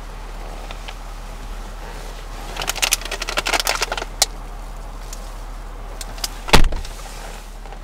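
Fireworks going off: a quick string of crackling pops for a couple of seconds, then a single loud bang near the end, over a steady low hum.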